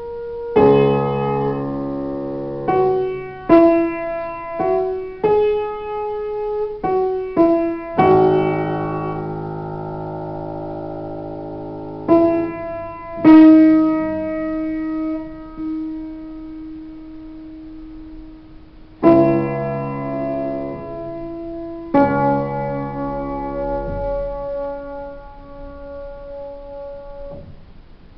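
Solo upright piano playing slow chords, each struck and held to ring and fade; some are sustained for five seconds or more.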